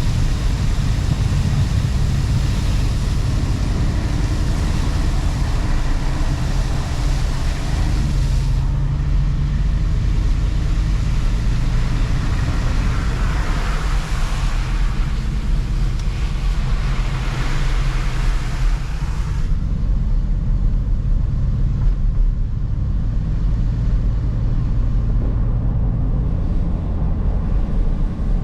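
Car driving on a road: a steady low rumble of engine and tyres with a rushing hiss of road noise that fades about a third of the way in, swells again mid-way and drops away about two-thirds of the way through.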